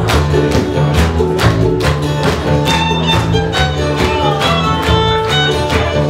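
Irish folk band playing live in an instrumental break: fiddle leading the tune over acoustic guitar and bass guitar, with a steady beat about twice a second.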